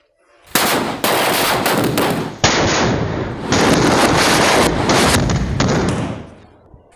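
Firecrackers bursting in rapid, dense succession, a continuous crackling string of bangs that starts about half a second in, grows louder about a second in and again near two and a half seconds, and dies away about six seconds in.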